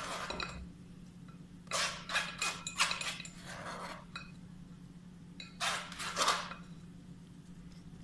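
A plastic mesh strainer knocks and scrapes against a glass mixing bowl in four short bursts as citrus pulp is shaken out of it. A faint steady hum sits underneath.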